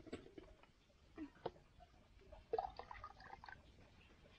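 Faint dripping of boiled plum juice through a cheesecloth strainer, with scattered small knocks.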